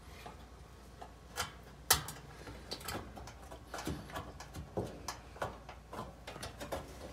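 Irregular light clicks and metal taps, with one sharper knock about two seconds in, as the sheet-metal heating-element housing of an electric dryer is handled and pressed into place against the cabinet.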